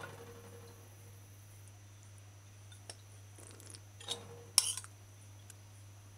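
A few light knocks as a ceramic bowl is lifted off turned-out potato salad, then a sharp clink with a brief ring about four and a half seconds in as the bowl is set down. A steady low hum runs underneath.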